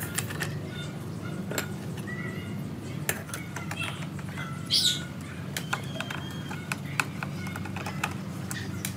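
Scattered light clicks and scrapes of a screwdriver and hands working on the mud-caked sheet-metal case of a disc player, over a steady low hum. A brief high squeak comes about five seconds in.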